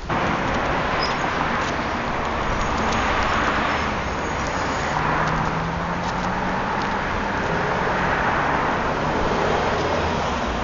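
Steady rush of road traffic noise that swells and eases, with a faint low engine hum in the middle.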